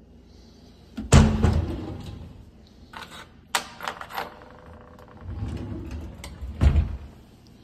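Wooden kitchen cabinet doors and drawers being handled. There is a loud knock about a second in, a few sharp clicks, a drawer sliding on its runners, and another knock near the end as a drawer is pushed shut.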